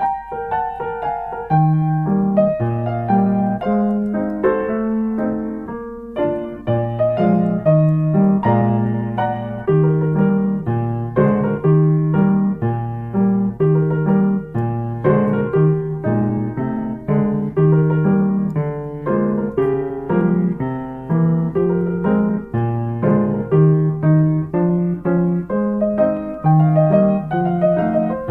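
Background piano music: a steady run of notes over a repeating bass line, with no speech.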